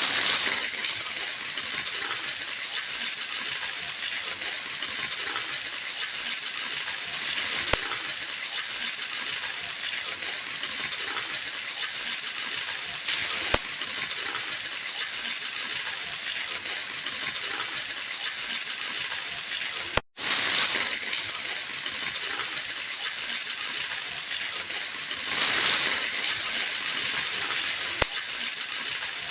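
Onions frying in hot oil: a steady crackling sizzle with a few sharper pops, swelling louder now and then, and a momentary break about two-thirds of the way through.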